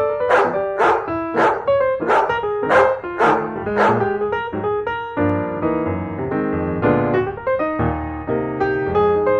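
A dog barking in a steady rhythm, about two barks a second, over music; the barks stop about four and a half seconds in and piano music carries on alone.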